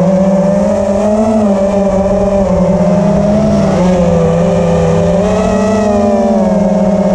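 FPV quadcopter's electric motors whining, heard from the drone itself, the pitch rising and falling a little as the throttle changes.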